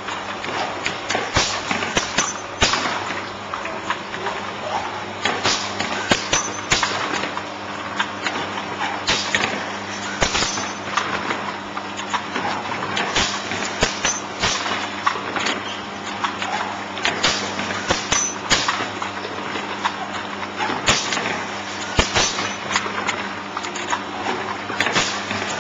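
Automatic folder-gluer for crash-lock-bottom corrugated boxes running. A steady mechanical hum sits under frequent, irregular clacks and knocks as the machine handles the cardboard blanks.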